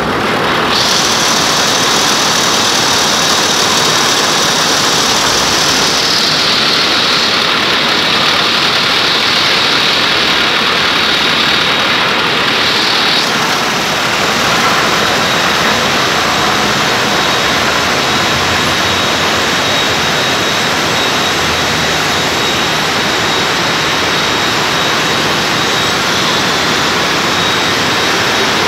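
Loud, steady din of a can conveyor line: aluminium beverage cans rattling against each other and the metal guides, over machinery noise, with a thin high whine throughout.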